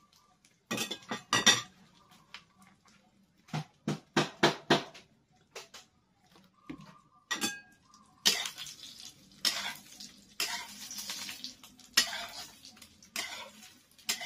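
A metal utensil knocking and scraping in a metal frying pan: two quick clusters of sharp clinks in the first five seconds, then from about eight seconds in a denser run of scrapes and clanks over a sizzle as the egg fries.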